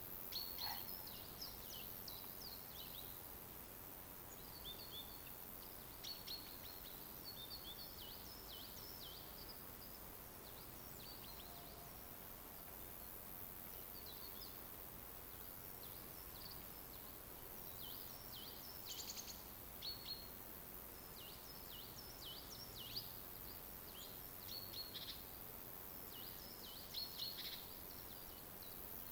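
Small songbirds chirping in a forest: clusters of short high chirps and trills, thinning out for a few seconds in the middle, over a faint steady background hiss.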